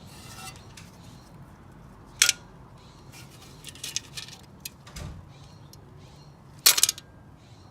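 Broken metal engine parts clinking and rattling as they are picked through by hand in a blown engine's bottom end. There is a sharp clink about two seconds in, a few lighter clicks, a dull knock around five seconds, and a loud short metallic rattle near the end.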